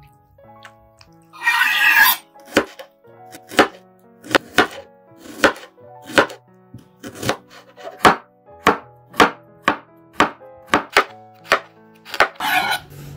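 Kitchen knife slicing a shallot and garlic cloves on a hard cutting surface: about twenty sharp chops, roughly two a second, with a short noisy burst just before the chopping starts and another near the end.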